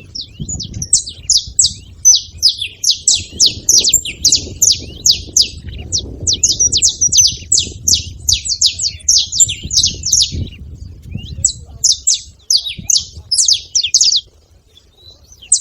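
Saffron finches calling in a rapid, busy stream of sharp, high chips that sweep downward, many notes a second and overlapping. The calls thin out after about twelve seconds and stop briefly near the end.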